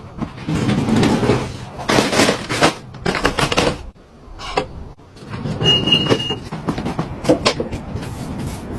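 Irregular knocks, clicks and scraping as household furniture or fittings are handled and moved, with a short high beep about six seconds in.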